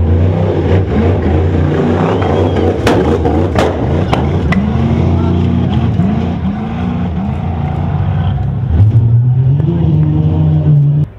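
Off-road race truck engines running hard and revving up and down as the trucks pass, with a couple of sharp knocks about three seconds in. Near the end an engine climbs in pitch, then the sound cuts off abruptly.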